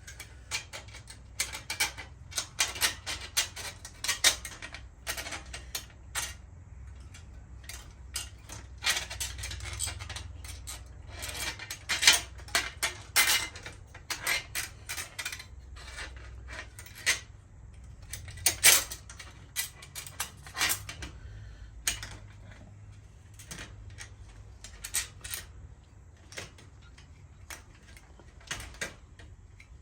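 Small metal bicycle parts and hand tools clinking and clanking while being handled and fitted: irregular sharp taps and knocks, with a couple of louder clanks midway through.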